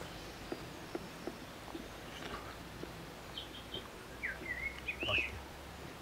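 A bird calling, a few short high chirps followed by a brief call that swoops up and down, over faint outdoor background with scattered small clicks.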